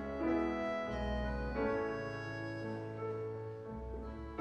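Instrumental music: piano with sustained accordion chords over a held low bass, the harmony changing every second or so.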